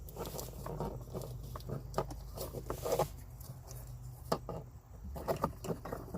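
Rummaging by hand while searching for a wiring connector: scattered light clicks, knocks and rustles over a low steady hum.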